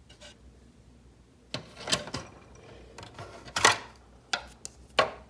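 Hard plastic toy parts clicking and clacking in a quick, irregular string of taps, beginning about a second and a half in, as the projector piece of a Calico Critters lighthouse is pulled out and fitted back into place.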